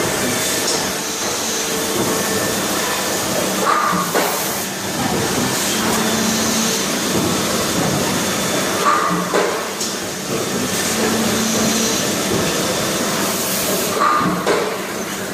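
Injection moulding machine with a side-entry take-out robot running in production, making a steady machine noise. About every five seconds the machine cycles with a click, a short air hiss and a brief low tone.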